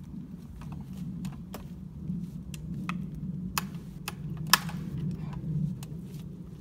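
Irregular clicks and knocks as a chainsaw is readied and its starter cord pulled against high compression, the sharpest knock about halfway through, over a steady low hum.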